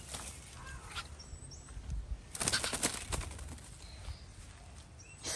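A bird flapping its wings in a quick burst of rapid strokes about two and a half seconds in, with a few faint high chirps just before it.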